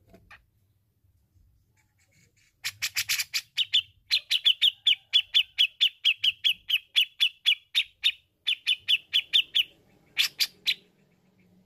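Grey-cheeked bulbul (cucak jenggot) calling a fast string of sharp, repeated notes, about five a second. The string starts a few seconds in and breaks off near the end, followed by a few harsher notes.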